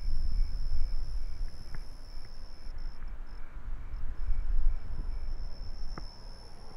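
Night-time insect chorus: a continuous high-pitched trill with crickets chirping about twice a second, over a low rumble and a couple of faint clicks.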